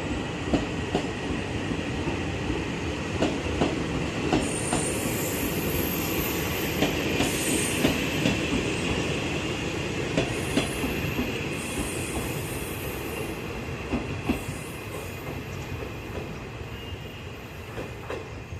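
Taiwan Railways parcel train pulling out and rolling past: wheels clicking over rail joints, with high-pitched wheel squeal coming and going through the middle. The sound slowly fades toward the end.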